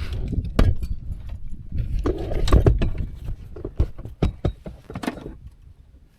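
Irregular close knocks and clicks with rustling and a low rumble, busiest in the middle and dying away near the end.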